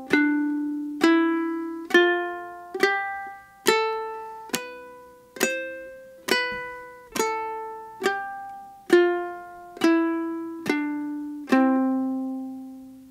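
Ukulele played clawhammer style, single notes struck downward with the back of the fingernail. It plays a slow C major scale, one note about every 0.9 seconds, climbing from the open C string up the octave and back down. The last C is left to ring out and fade.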